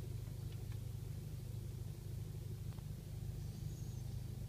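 Steady low background rumble, with a few faint clicks; no barking or howling.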